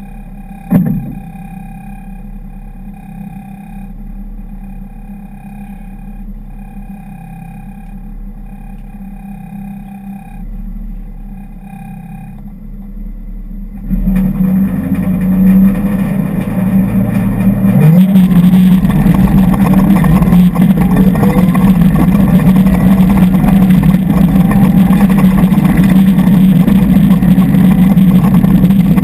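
Mitsubishi Lancer Evolution X rally car's turbocharged four-cylinder, heard inside the stripped cabin, idling on the stage start with a sharp knock about a second in. About halfway through it launches at full throttle, rises in pitch through the gears and runs loud and hard down the gravel stage.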